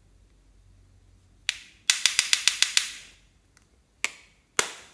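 Sharp plastic clicks and taps from handling a small plastic eyeshadow palette and a plastic spatula: one tap, then a quick run of about eight taps in under a second, then two more taps near the end.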